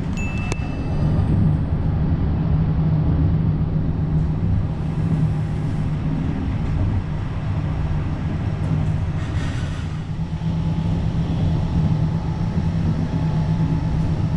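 Steady rumble and low hum of a Trenitalia regional express train running along the track as it climbs a mountain line, heard from inside the passenger coach.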